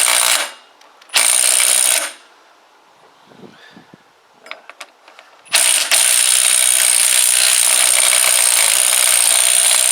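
Impact wrench run in three bursts, two short ones and then a long one of about five seconds, spinning the crank of a petrol pressure washer's small engine. The engine does not fire, and the wrench is not enough to start it.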